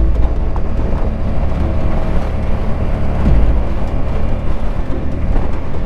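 Suzuki Boulevard M50's 805 cc V-twin engine running under way on the climb, a heavy low rumble that swells at the start and again about three seconds in.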